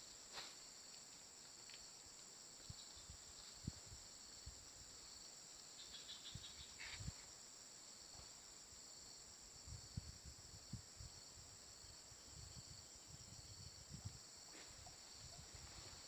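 Insects droning in a steady high-pitched chorus, faint, with a few soft low knocks scattered through.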